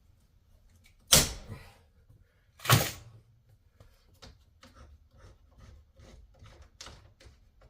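Two loud, sharp clacks about a second and a half apart, each ringing off briefly, then light scattered clicks and handling noises from hand work on the motorhome's vent window frame and its rivets.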